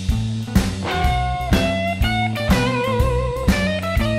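Rock music: an electric guitar plays a melody of bent and wavering notes over bass and a steady drum beat.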